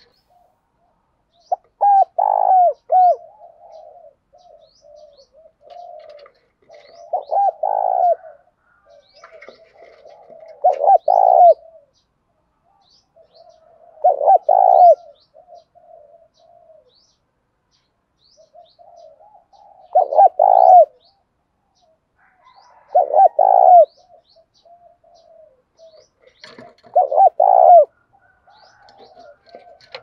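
Spotted dove cooing close to the microphone: seven loud phrases of rolling coos a few seconds apart, with softer coos in between. Faint, short chirps of small birds sound in the background.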